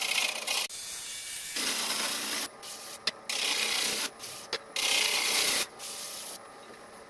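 Bowl gouge cutting the inside of a fruitwood bowl spinning on a wood lathe: a series of short scraping cuts, each about half a second to a second long, with brief pauses between them.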